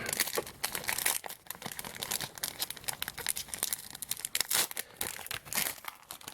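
Plastic trading card pack wrapper being crinkled and torn open by hand, with many quick irregular crackles throughout.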